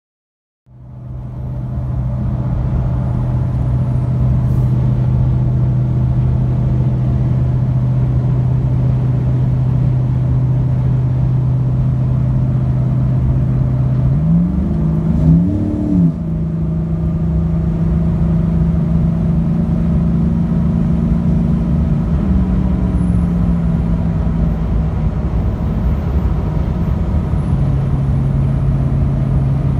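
Dodge Ram's 5.7L Hemi V8 through an LMC catback dual exhaust and long-tube headers, heard inside the cab while cruising at highway speed around 2000 rpm: a steady, loud exhaust drone. About halfway through the engine note rises and falls briefly, settles a little higher, then drops back to its first pitch near the end.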